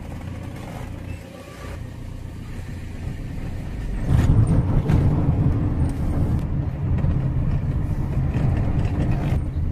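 Engine and road noise of a vehicle being driven, heard from inside the cab: a steady low rumble that gets louder about four seconds in.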